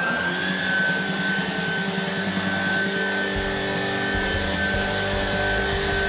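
Shark Stratos cordless stick vacuum running on carpet with a steady high whine from its motor, an uneven low rumble joining about three seconds in.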